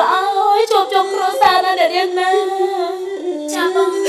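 Khmer Bassac opera (lakhon basak) singing: a single voice sings long, sliding notes over instrumental accompaniment.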